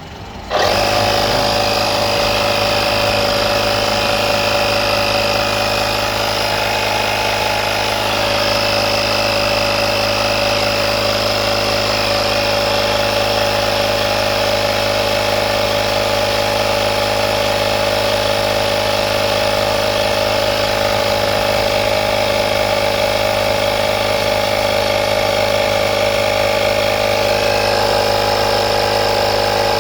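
Portable 12-volt digital tire inflator's piston compressor starting abruptly about half a second in and running steadily, pumping air into a car tire toward its preset pressure.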